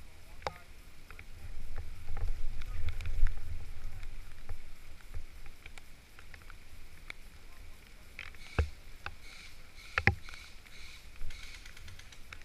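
Low rumbling and rustling of movement against the microphone, with scattered sharp clicks and two louder knocks later on.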